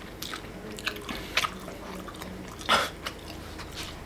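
Mouth sounds of a person chewing a juicy pan-fried dumpling: wet smacks and clicks at uneven intervals, the loudest about three-quarters of the way through.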